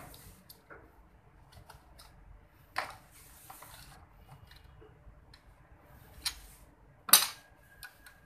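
Metal hand tools clinking and knocking against a tractor's bare engine block as a socket wrench is worked on the front of the engine: scattered light clicks with a few sharper metal knocks, the loudest about seven seconds in.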